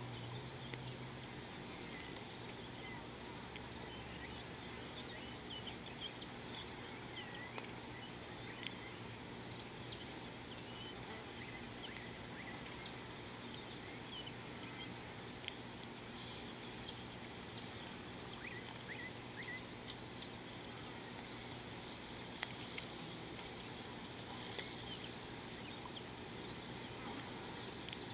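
Wild birds calling in short, scattered chirps and twitters over steady outdoor background noise, with a steady low hum underneath.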